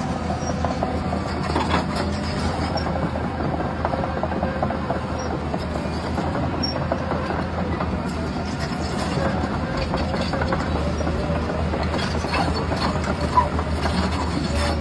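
Radio-controlled model truck running: a steady hum from its electric drive with a continuous rattle and clatter of gears and wheels.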